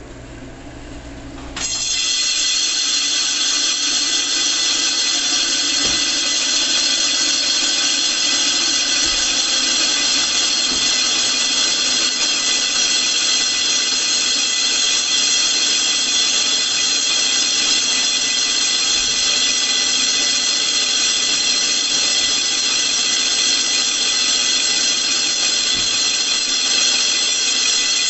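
Gural cheese slicer's circular blade being sharpened while it spins. A low motor hum, then about a second and a half in the sharpening stone meets the edge and a loud, steady, high-pitched grinding screech sets in and holds without a break.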